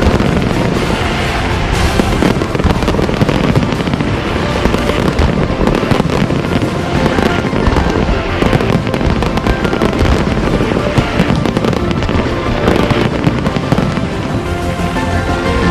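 Fireworks display going off: a continuous, dense crackle of small bursts and bangs, with music playing underneath.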